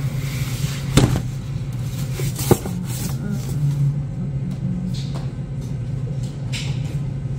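Steady low hum of commercial kitchen equipment, with two sharp knocks about a second and two and a half seconds in as food and containers are handled on the prep counter.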